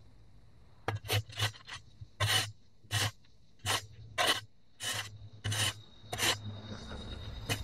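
Steel shovel blade scraping and chopping turf and soil off a concrete edge: about a dozen short rasping strokes, irregularly spaced, roughly one every half second, starting about a second in.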